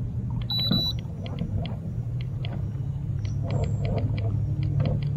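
Steady low hum of a boat's electric trolling motor, with short high ticks scattered irregularly through it.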